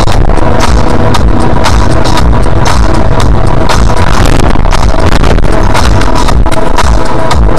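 Loud electronic dance music with a steady beat.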